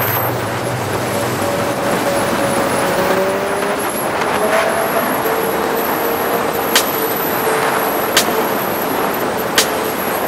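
Motorcycle on the move: a steady rush of wind and road noise with the engine running underneath, and a few sharp ticks.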